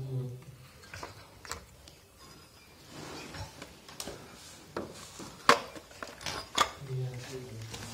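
An adjustable wrench clinking and scraping against the fitting on a small electric pump as it is tightened: scattered metallic clicks and knocks, with the sharpest clack about five and a half seconds in.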